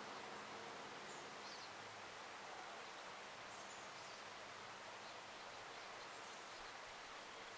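Quiet outdoor ambience: a steady faint hiss with a few distant high bird chirps scattered through it, and a faint buzzing hum that fades out in the first second or so.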